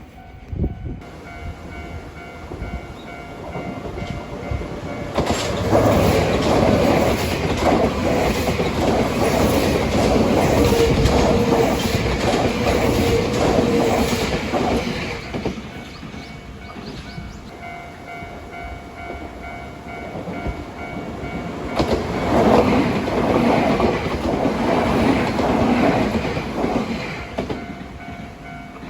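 Nankai Main Line train wheels passing over the rail joints at a level crossing, a dense run of clattering clicks. The clatter swells about five seconds in and lasts some ten seconds, then comes up again for a few seconds near the end.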